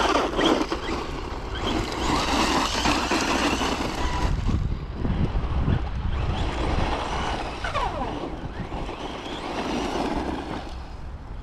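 FTX Ramraider 1/10 brushless RC monster truck driving, its tyres rushing over the ground as the motor is worked on and off the throttle, with a falling motor whine about eight seconds in.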